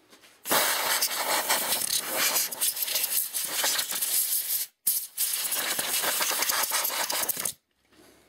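Aerosol air duster spraying in two long hissing blasts with a short break between them, blowing years of dust out of an oscilloscope's circuit board.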